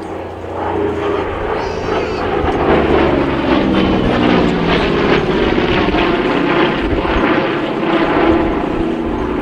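Douglas A-26 Invader's twin Pratt & Whitney R-2800 radial piston engines running loud as the aircraft flies by. The sound swells about a second in and the engine note drops in pitch as it passes.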